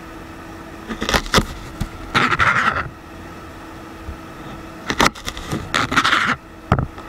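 Chef's knife slicing ginger on a plastic cutting board: two slow cuts, each a few sharp knocks of the blade followed by a short crunch through the root.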